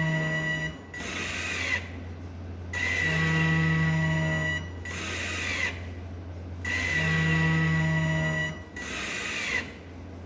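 DIY non-invasive ventilator cycling: its blower motor runs up with a steady whine for each push of air, about four seconds apart, with a shorter, softer rush between pushes. A steady low hum runs underneath. The open extension tube, with no mask on it, adds its own sound to the machine.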